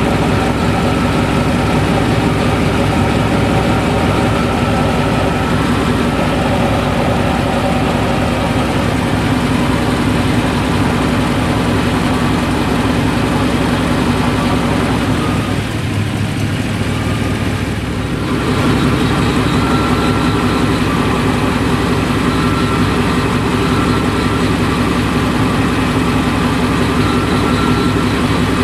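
The truck's 5.7 L V8 runs steadily, heard from underneath the vehicle. About 16 seconds in the sound briefly drops and thins for a couple of seconds, then returns to the same steady running.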